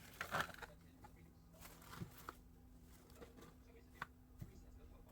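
Cling film crinkling and rustling as it is pulled and stretched over a bowl, loudest about half a second in, with a few light clicks and taps after it.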